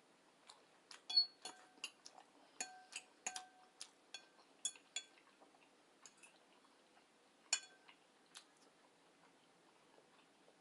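Eating utensil clinking and tapping against a dish: a quick run of sharp clinks with a short ring over the first five seconds, then a few scattered ones.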